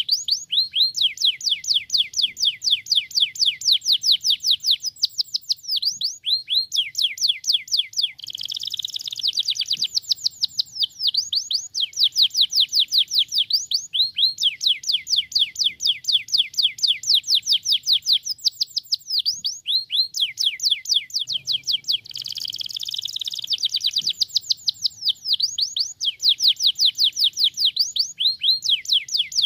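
Canary singing: long rapid trills of repeated sweeping high notes, broken twice by a denser, more jumbled warbling phrase.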